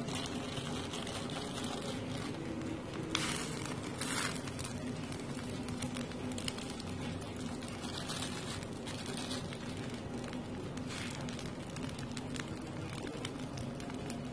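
Pot of water at a rolling boil with wontons cooking in it: steady bubbling with a few brief louder surges of hiss.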